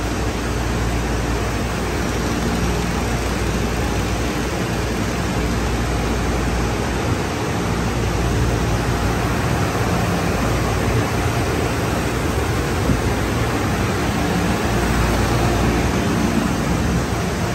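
Conveyor car wash tunnel machinery running: the cloth wrap brushes and their electric drive motors give a steady rushing noise over a low hum.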